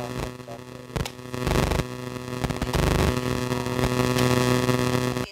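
Harsh static with a steady buzzing hum, swelling and dipping in loudness: a fault in the recording's audio track.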